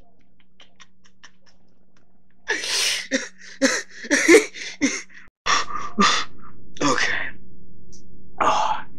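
A man's wheezing, breathy laughter: a string of short hissing bursts of breath beginning about two and a half seconds in and coming in fits, broken once by a brief silence.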